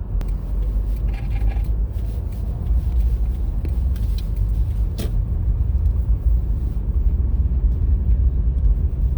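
Steady low rumble of a Toyota Corolla driving on a snow-covered road, heard from inside the car: engine and tyres rolling through wet snow. A sharp click about five seconds in.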